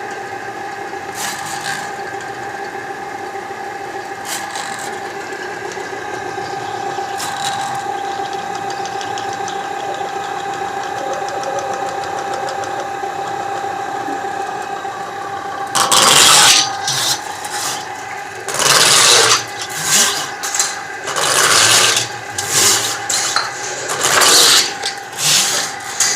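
Motorized drain-cleaning equipment running steadily with a constant hum. About two-thirds of the way in, loud rasping bursts begin and repeat every second or two.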